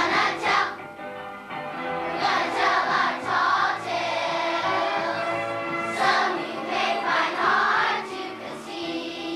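Children singing a song together in phrases, in a choir of young voices.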